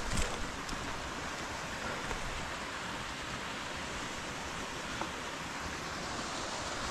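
Steady outdoor hiss with a few faint ticks.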